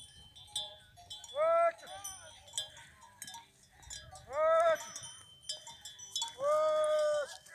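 Bells on pack horses ringing and jingling as the caravan walks. Three loud drawn-out calls cut across them, about one and a half, four and a half and seven seconds in, the last the longest.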